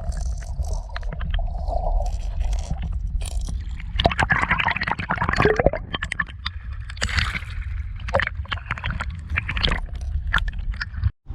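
Shallow water splashing and sloshing, with scrapes and sharp clicks, over a steady low rumble. The splashing swells twice, about four and seven seconds in.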